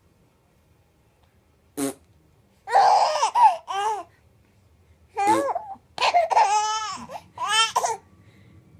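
Baby laughing and squealing in a series of high-pitched bursts, starting shortly after a brief sharp sound about two seconds in.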